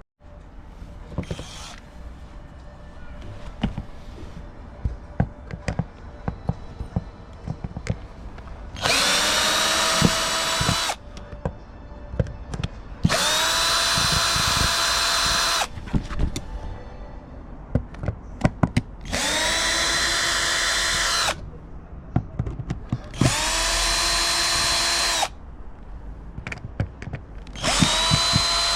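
Power drill run in five short bursts of about two seconds each, its motor whining at a steady pitch, with small knocks and clicks of handling between the bursts.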